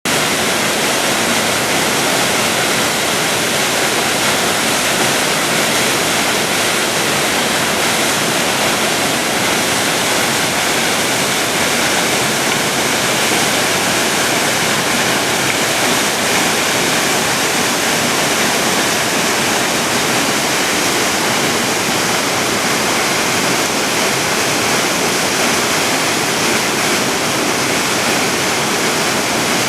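Waterfall pouring: a loud, steady rush of falling water that holds even throughout.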